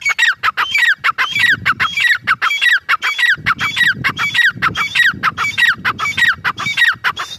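Grey francolin calling: a rapid string of shrill, repeated notes, about two a second, each sliding down in pitch, stopping abruptly near the end.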